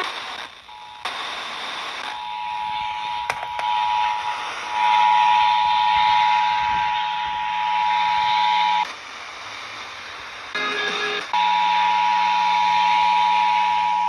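Emergency Alert System attention signal, the steady two-tone alarm, coming from a small Eton portable radio's speaker over FM hiss and marking the start of a Required Monthly Test. It cuts out about nine seconds in, a short burst of other noise follows, and the tone comes back about two seconds later.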